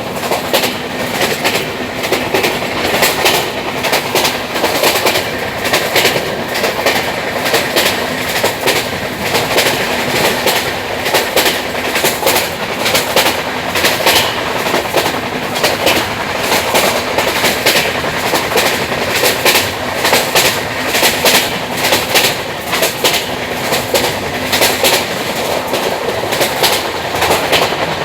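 Train running along the track, its wheels clattering over the rails in a continuous stream of clicks and knocks.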